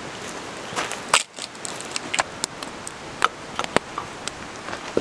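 Wood campfire crackling, with sharp irregular pops and snaps over a steady background hiss.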